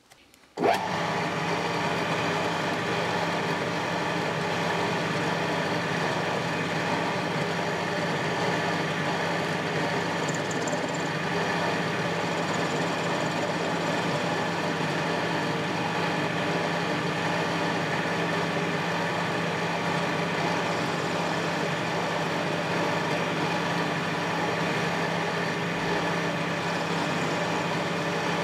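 Small benchtop metal lathe starting up about a second in and then running steadily, a constant motor and drive hum with several steady tones. Its spindle turns a thin metal rod against an insert cutting tool.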